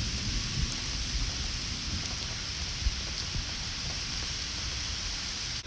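Steady rain: an even hiss with an uneven low rumble underneath.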